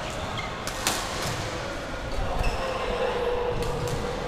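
Badminton play in a large, echoing sports hall: a sharp racket hit on a shuttlecock about a second in, a fainter hit just after, and short squeaks of court shoes on the floor later on.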